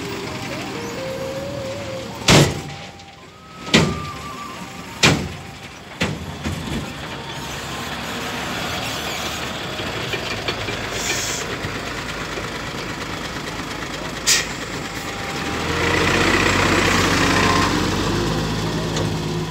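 Diesel dump truck engines running as loaded trucks move over a dirt yard, with four short, sharp, loud bursts: three in the first five seconds and one about fourteen seconds in. Near the end one truck passes close by, its engine louder for a couple of seconds.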